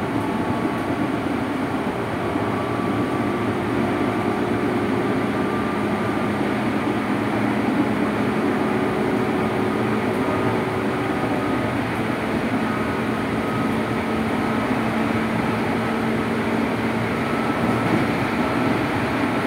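Running sound inside a JR 205 series electric commuter train's motor car: the steady rumble of wheels on rail under a faint traction-motor whine whose pitch climbs slowly as the train gathers speed.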